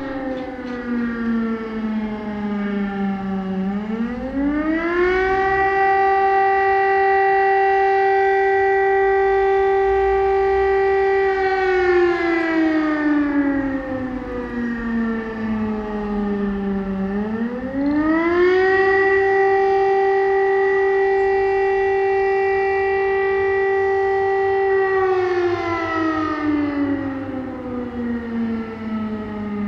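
Civil defence siren wailing. It opens on a falling tone, rises quickly about four seconds in, and holds a steady pitch for about six seconds. It then slides slowly down for about five seconds and repeats the cycle, starting to rise again at the very end.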